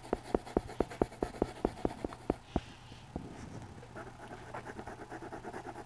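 Colored pencil shading back and forth on drawing-pad paper, in regular scratchy strokes about four a second, turning softer about two and a half seconds in. The pencil's tip is worn flat.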